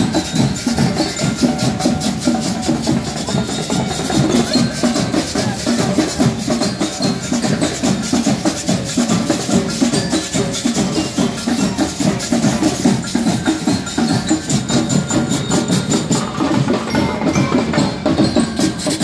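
Marching rhythm band (banda rítmica) playing drums and percussion in a steady, driving beat, with some pitched metal percussion over the drums.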